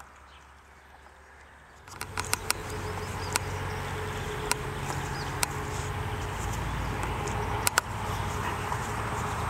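Rough collie puppy mouthing water balloons in the grass. About two seconds in, a steady low rumble starts, with scattered sharp clicks over it and a quick pair near the end.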